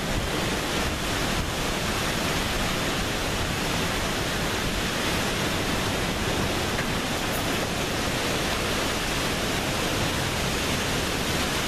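Steady rush of hurricane wind and driving rain, an even noise with no breaks.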